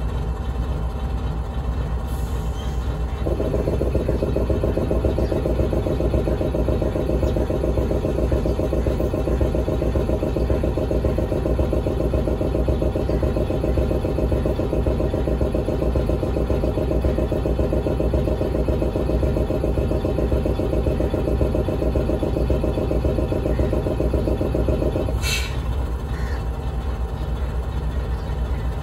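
KTMB Class 26 diesel locomotive's engine running with a steady low rumble. From about three seconds in, a louder, fast-pulsing mechanical rattle joins it and runs until a short sharp hiss near the end, after which only the low rumble remains.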